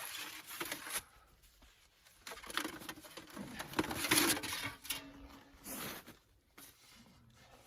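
Sheet-metal stovepipe sections being handled and slid into one another: intermittent scraping and rattling in three bouts, the longest in the middle, with short pauses between.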